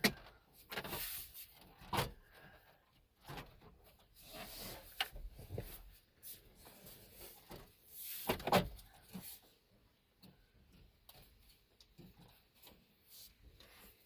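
Handling of plastic dash-kit parts and screws: irregular clicks, knocks and scrapes, the loudest knocks just at the start, about two seconds in and about eight and a half seconds in, with lighter fiddling after that.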